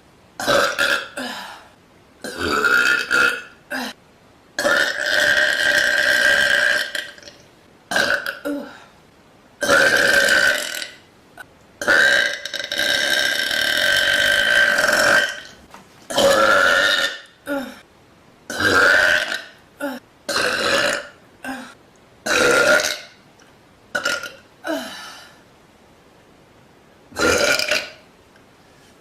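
A woman burping repeatedly: about fifteen burps with short pauses between, some brief and several long and drawn out, the longest lasting about three seconds.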